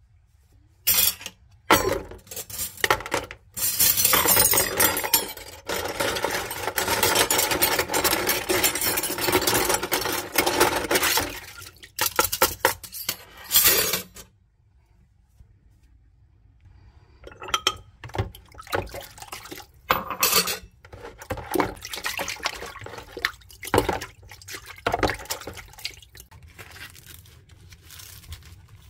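Dishes being washed by hand in a plastic basin of water: a glass jar and plastic cups clinking and knocking against the basin, with water sloshing. A steady rush of running water lasts several seconds early on, and the clinks and splashes resume after a short quiet pause.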